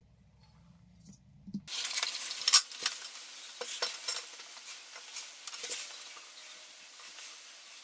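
Faint low hum for about the first second and a half, then a steady hiss with irregular clicks, taps and scrapes as hands work on a toilet bowl and its seat lid. The loudest knock comes about two and a half seconds in.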